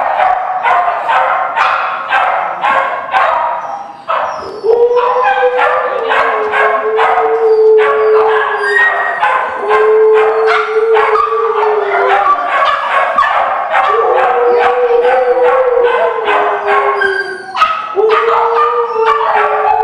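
Several kennelled shelter dogs barking in a fast, continuous clamour. From about four seconds in, a dog howls over the barking in four long, drawn-out calls of a few seconds each.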